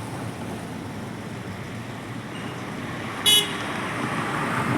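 Steady traffic-like background noise, with one brief, sharp, high ringing sound about three seconds in.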